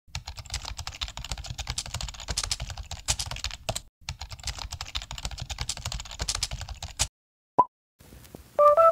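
Rapid keyboard typing sound effect in two runs of about three seconds each, split by a short pause. It stops about seven seconds in, followed by a brief high tone.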